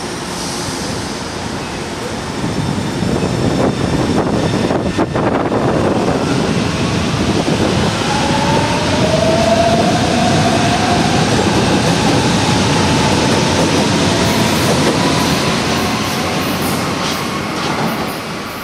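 Alstom electric train pulling out beneath the overpass, its wheels rumbling on the rails. Its traction motors give a whine that rises in pitch as it gathers speed.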